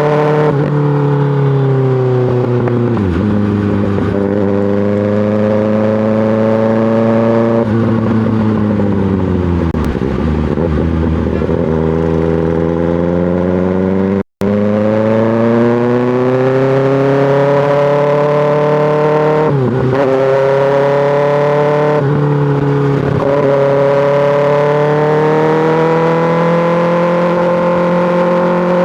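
2024 Kawasaki ZX-6R inline-four running through an M4 GP slip-on exhaust while being ridden. Its pitch climbs under acceleration and drops at each gear change. Around ten seconds in it falls slowly as the bike slows, and the sound cuts out briefly about halfway.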